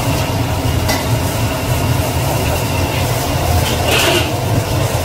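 A metal ladle stirring a sauce bubbling in a carbon-steel wok, over the steady low roar of the wok range, with a brief scrape of the ladle on the wok about four seconds in.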